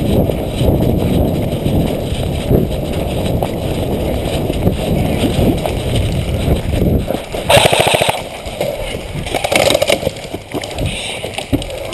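Airsoft guns firing two short full-auto bursts, rapid even clicks, about two-thirds of the way in and again two seconds later. Before them a steady rumbling noise of movement and wind on the microphone.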